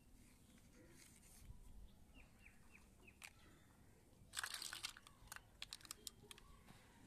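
Near-silent background with four faint short descending bird chirps, then a brief crinkling rustle about four and a half seconds in, followed by a few light clicks.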